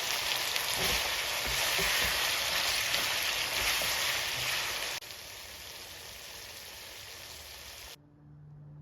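Food sizzling in hot oil in a pan, a steady hiss with a few light knocks of stirring. It drops to a quieter sizzle about five seconds in and cuts off near the end.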